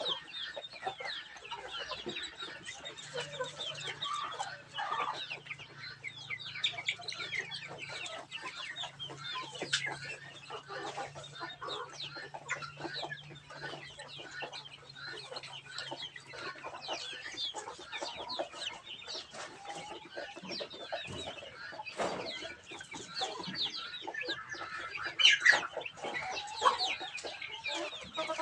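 A flock of young chickens clucking and peeping continuously, many short overlapping calls, with a few louder calls near the end.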